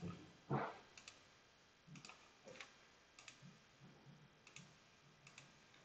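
Faint computer mouse clicks, about ten sharp single clicks spaced irregularly, the loudest about half a second in.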